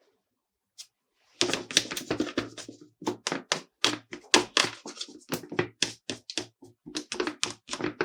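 Small plastic toy pieces handled and tapped together in a quick, irregular run of clicks and taps, starting about a second and a half in.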